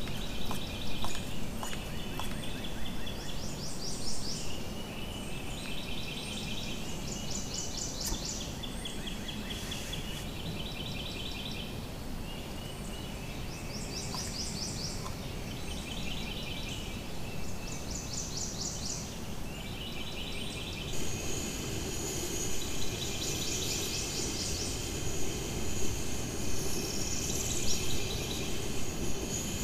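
Songbirds singing repeated short, rapid trilled phrases, one after another, over a steady outdoor background hiss. A few light clicks of handling come near the start.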